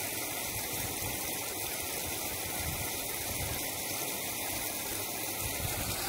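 Steady rush of a flowing creek, an even wash of water noise.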